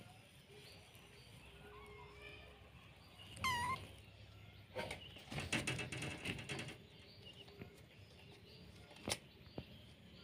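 A kitten gives one short, high mew, followed by a couple of seconds of scuffling and a sharp click later on. Faint bird chirps sit in the background.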